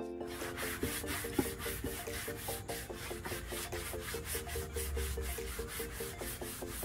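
Hand sanding with 220-grit sandpaper on a painted wooden drawer front: quick back-and-forth rasping strokes, several a second, with music underneath.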